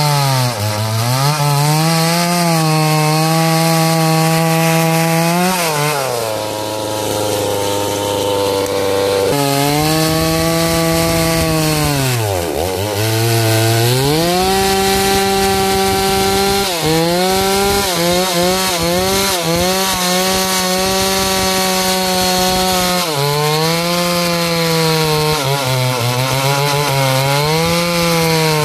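Chainsaw running hard and cutting wood. Its pitch sags and recovers several times as the chain bites under load, with a lower, steadier stretch about six to nine seconds in.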